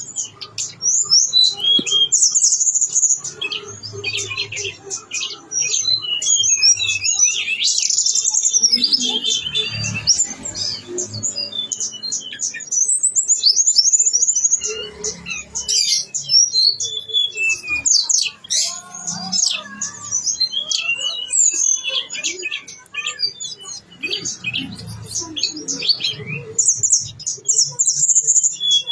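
A tledekan gunung songbird singing a long, fast, varied song of high chirps and trills, packed with mimicked phrases of other birds.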